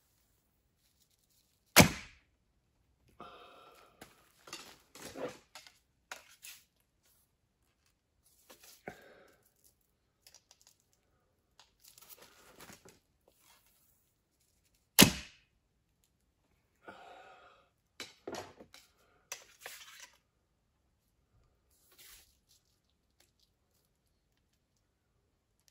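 Recurve bow shot twice, about 13 seconds apart: each shot is a sharp, loud snap as the string is released and the arrow is loosed. Each snap is followed by rustling and light clicks as the next arrow is handled and nocked.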